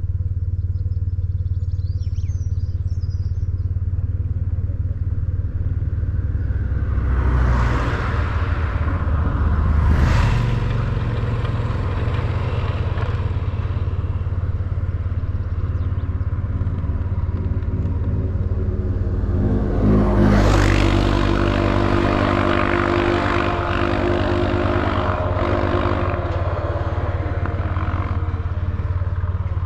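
BMW R1150GS's air-cooled boxer twin running steadily on the road, heard from the bike. There are two louder swells of rushing noise, about a quarter and two-thirds of the way through, the second followed by a few seconds of higher engine tones.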